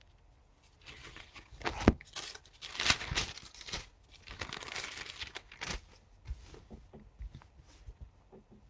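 Thin pages of a Bible being leafed through, a rustling and crinkling of paper in irregular spurts, loudest in the first half and trailing off into a few faint rustles and taps.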